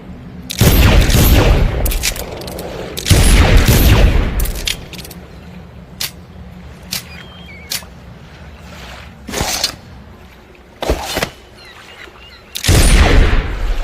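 Pistol gunshot sound effects: three loud shots, each with about a second of rumbling tail, near the start, about three seconds in and near the end. Between them come several shorter, quieter sharp cracks.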